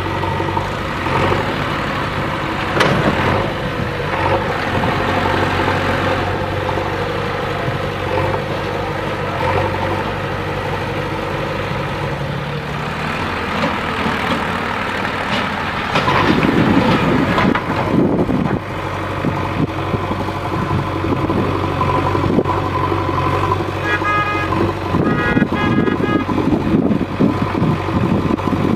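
Diesel engine of a JCB 3DX backhoe loader running while it works, louder and rougher for a couple of seconds past the middle. A string of short beeps comes about three-quarters of the way through.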